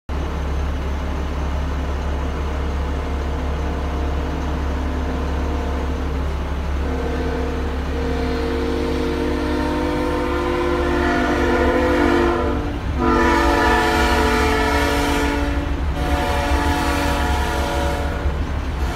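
CSX diesel freight locomotive's air horn sounding a multi-note chord in long blasts at a grade crossing, heard from inside a vehicle's cab. The horn comes in about six seconds in, gets louder about halfway through, and breaks off briefly twice between blasts, over a steady low rumble.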